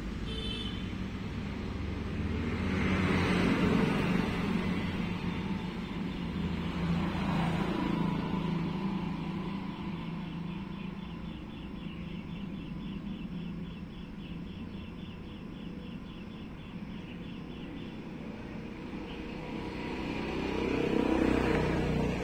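Road traffic: a steady low hum of vehicles, with a few passing by more loudly at intervals. A faint, even ticking of about four a second runs for several seconds in the middle.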